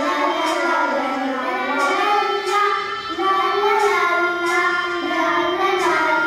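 Children's voices singing a Polish regional folk song together, holding and changing notes in a steady melody.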